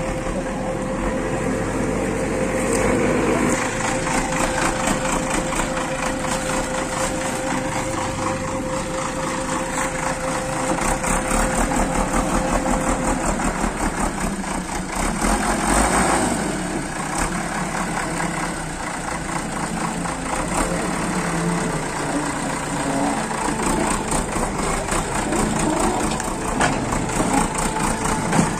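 Diesel engine of a JCB 3DX backhoe loader running steadily, briefly louder about halfway through.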